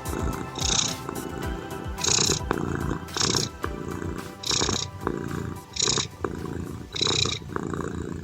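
Domestic cat purring, a continuous low rumble, mixed with slow ambient music. A short high hiss comes back about every second and a quarter.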